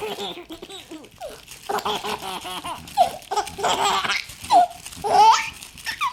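Baby laughing in a string of short, high-pitched bursts, some sliding up or down in pitch like squeals.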